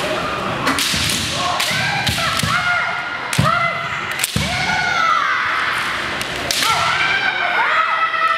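Kendo fencers' long, drawn-out kiai shouts, with sharp cracks of bamboo shinai striking and stamps of bare feet on the wooden floor; the loudest strikes come about three and a half and four seconds in.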